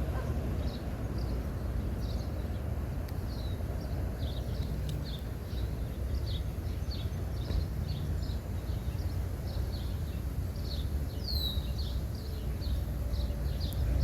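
Birds chirping in short, repeated notes, about two a second, with one louder sweeping call near the end, over a steady low rumble.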